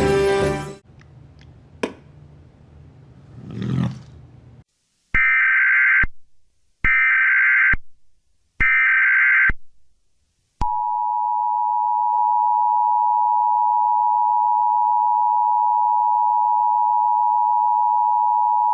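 Emergency Alert System alert tones: three harsh data bursts of about a second each, a second apart (the SAME header), then the steady two-tone attention signal (853 and 960 Hz) held for about eight seconds. Music cuts off just after the start.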